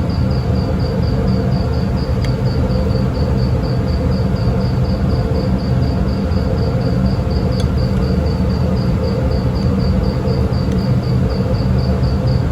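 Steady, loud low hum of a ship's running machinery, with a high chirping tone pulsing about four times a second over it.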